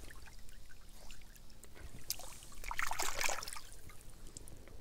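Shallow creek water trickling, with a short burst of splashing about three seconds in as a fossil vertebra is dipped and rinsed in the stream.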